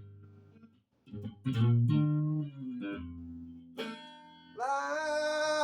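Guitar being picked between sung lines: a brief gap, then single plucked notes that ring on. Near the end a loud held note with a slight waver comes in over the guitar.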